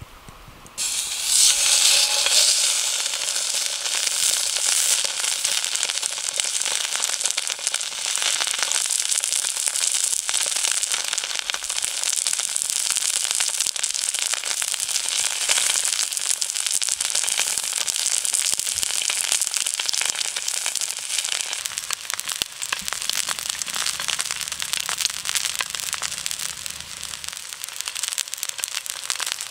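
Thick wagyu steak sizzling in a hot oiled frying pan. The sizzle starts suddenly about a second in, as the meat goes into the pan, and carries on as a dense, steady crackle of spitting fat.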